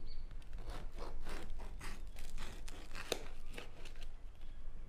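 Crinkling, tearing crackles of something being handled and pulled apart, a quick irregular run lasting about three seconds, with one sharper crack near the end of the run.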